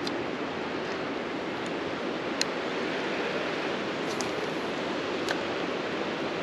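Steady rush of flowing stream water, with a couple of faint sharp ticks.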